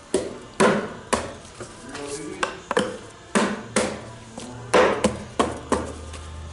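About a dozen sharp knocks at uneven intervals as the new filter is worked into place on a 6L80E automatic transmission. Faint background music underneath, with a low hum coming in about four seconds in.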